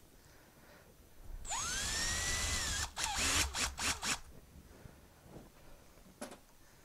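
Cordless drill spinning up with a rising whine that levels off, running for about a second and a half as it drills out a hole in a black plastic bracket, followed by a few sharp clicks and knocks.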